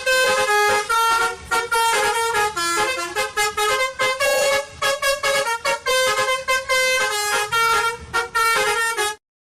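A musical horn playing a quick melody of short notes, stopping suddenly near the end.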